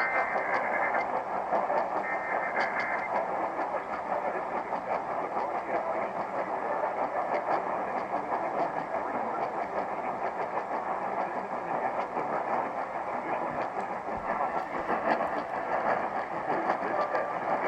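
Two short buzzy Emergency Alert System data bursts in the first three seconds, over steady hissing radio static that fills the rest.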